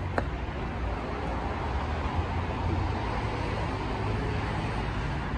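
Steady city traffic noise: a continuous low rumble of road traffic, with one short click just after the start.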